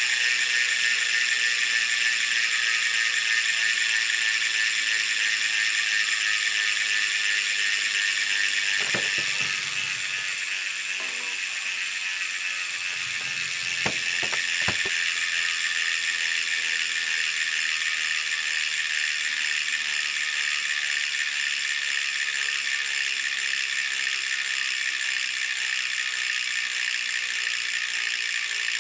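Hadley SDH XL 150 rear hub freewheeling, its pawls clicking so fast they blend into a loud, steady high-pitched buzz as the wheel coasts. The buzz drops off for a few seconds in the middle, with a few knocks, then picks back up.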